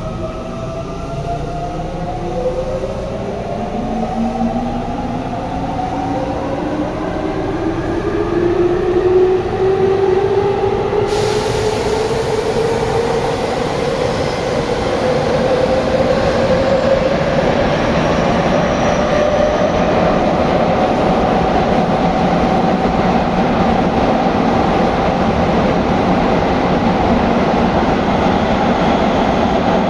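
Tobu 9050 series electric train accelerating: its motor whine climbs steadily in pitch through several tones while the rumble of the wheels on the rails grows louder. A hiss jumps up suddenly about a third of the way in.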